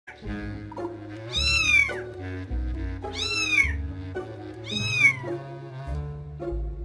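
A young kitten mewing three times, each a high cry that rises and falls, about a second and a half apart, over background music.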